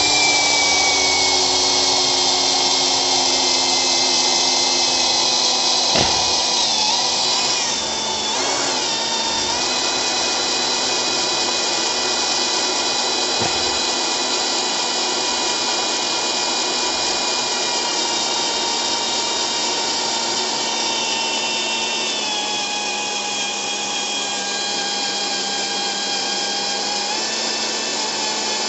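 Cordless drill running without a break, a 13 mm bit boring into a boiler's metal flue pipe. The motor's whine is steady but sags a little in pitch twice, about a quarter of the way in and again about three quarters through, as the bit takes more load.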